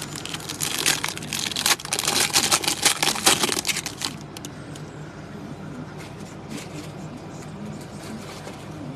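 Foil trading card pack wrapper being torn open and crinkled: a loud, dense crackling for about four seconds. It then drops to faint rustles as the cards are handled.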